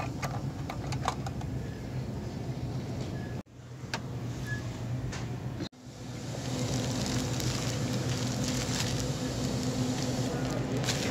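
Supermarket ambience with a steady low hum. There are a few light clicks of cans and packages being handled on a shelf, then a louder, steady rushing noise as a shopping cart is pushed along the aisle.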